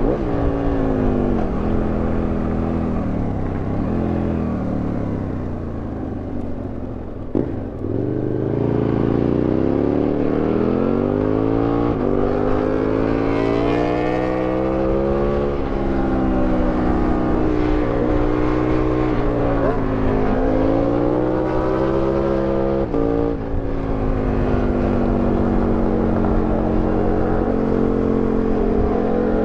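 Aprilia Tuono 1000R's V-twin engine, heard from the rider's seat, revving hard. Its pitch rises and falls over and over as the bike accelerates out of bends and slows into them, with a few abrupt breaks in the pitch.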